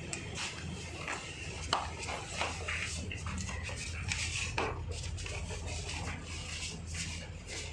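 Irregular clicks, knocks and rustling of people moving about close to a handheld phone, over a steady low hum.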